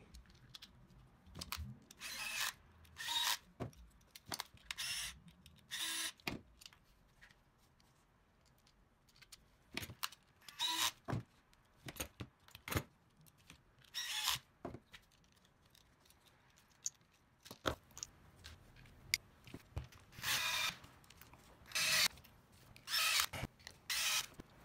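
Cordless power screwdriver driving screws into black plastic RC-car chassis parts in about ten short trigger bursts, with small clicks of screws and parts being handled between bursts.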